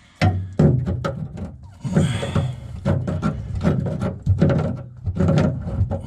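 Irregular clicks and knocks of a hand tool working a stubborn emblem-retaining nut on a 1965 Chevrolet Bel Air body, done with a makeshift tool instead of the proper one.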